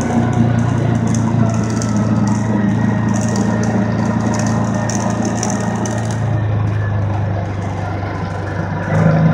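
ATV engine running at a steady pace while riding through snow, with wind and snow-spray hiss over it. The engine picks up and gets louder just before the end.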